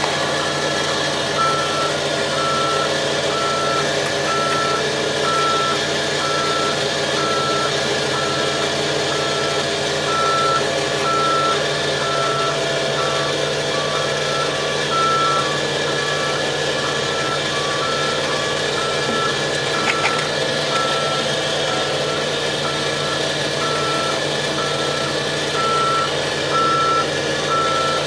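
Backup alarm beeping steadily about once a second, with a second, slightly lower-pitched alarm joining in at times, over the crane's diesel engine running steadily as the machine travels.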